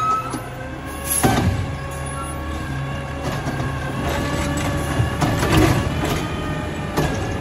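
Peterbilt 320 garbage truck running, with a steady mechanical whine as its Bridgeport side-loader arm lifts a cart. There is a sharp clunk about a second in, and a clatter around five and a half seconds in as the cart is tipped into the hopper.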